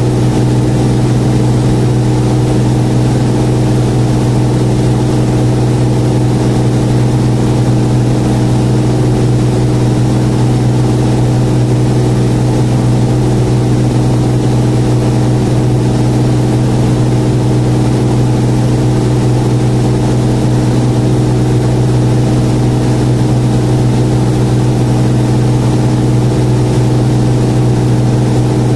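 Loud, steady drone of an airliner's engines heard inside the passenger cabin on approach: a deep constant hum with several steady tones above it and airflow hiss, unchanging throughout.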